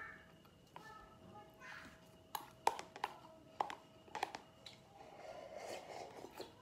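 Close-miked mukbang eating sounds: several sharp clicks and taps of chopsticks and a plastic container, then slurping as soup is drunk from the container near the end. A cat meows briefly about a second in.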